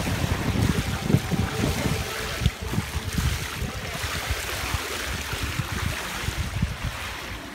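Steady rush of water running along a pool channel and spilling over small cascades, with wind buffeting the phone microphone in gusts that are strongest in the first couple of seconds and ease off after that.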